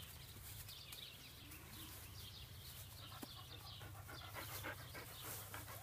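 Labradoodle puppies panting faintly as they play.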